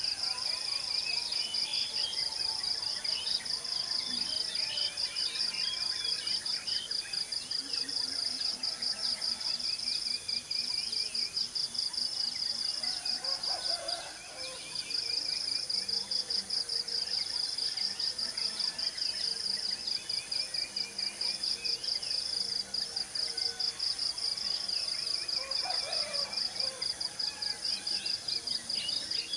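A high-pitched insect trill pulsing rapidly and evenly, with birds chirping over it. The trill breaks off for about a second halfway through, then resumes.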